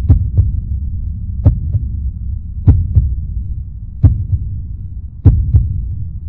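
Heartbeat-like thumping: a double thump about every 1.2 seconds over a low steady hum.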